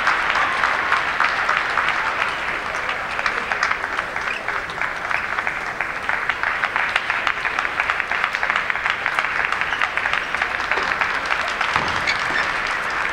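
Arena crowd applauding: a dense, steady patter of many hands clapping, a little louder at first.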